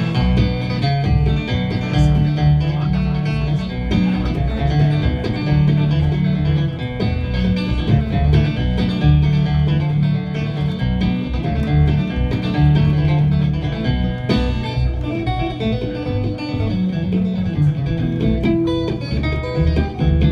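Live country music on upright double bass and acoustic guitar. The plucked bass notes are the loudest part, under the strummed guitar.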